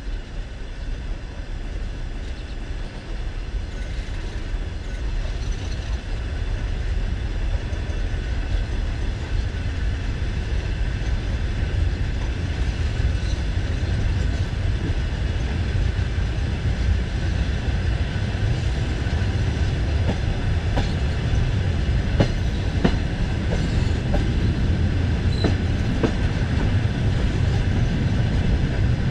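Passenger train carriage rolling on the track and gathering speed after departure, its rumble growing steadily louder, with a few sharp wheel clicks over the track in the second half.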